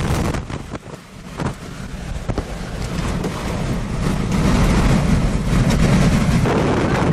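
Strong wind blowing across the microphone as a rushing noise, dropping off briefly about a second in and then building to a heavy, steady low roar.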